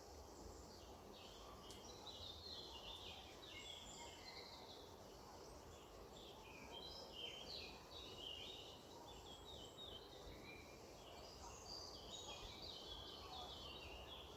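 Faint birdsong: several birds chirping in quick clusters of high notes, with a lull about five seconds in, over a steady background hiss.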